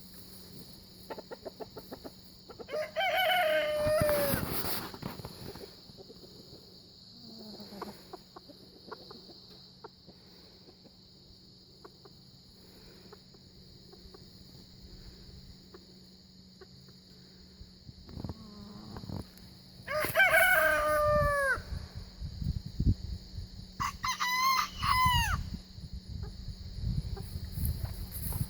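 Bantam rooster crowing three times: once a few seconds in, then twice close together in the second half, each call falling in pitch at its end. Low thumps come between the last calls.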